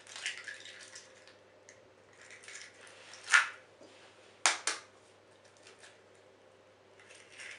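Eggshells being cracked by hand and pulled apart over a well of flour: a few sharp cracks, two of them close together about halfway through, with soft crackling and handling of shell in between.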